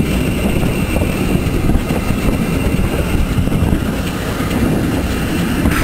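Metre-gauge steam locomotive working its train up the grade, heard close from the open platform of the coach directly behind it: a loud, steady rumble of the engine and the wheels on the rails. A brief sharper sound comes right at the end.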